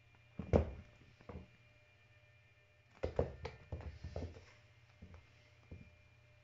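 A young cat's paws and body thumping and scrabbling on a hard floor as it pounces on and wrestles a plush toy. There is one thump about half a second in, then a quick run of thumps and scuffles from about three to four and a half seconds in.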